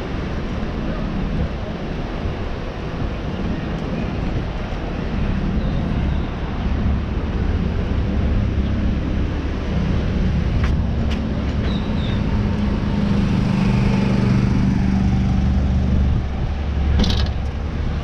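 City street traffic: a steady wash of road noise with a vehicle engine running at a steady hum from about a third of the way in until near the end. A few sharp clicks, the loudest near the end.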